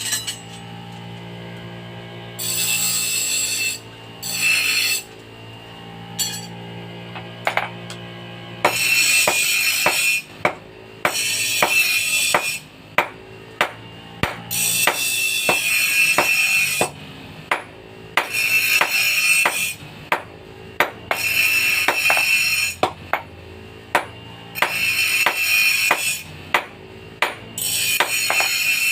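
Hammer blows on metal at the anvil, coming in quick runs, alternating with stretches of rasping, scraping noise a second or two long. Quiet background music runs underneath.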